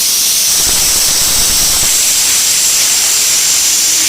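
Compressed air hissing out in a loud, steady, high-pitched hiss.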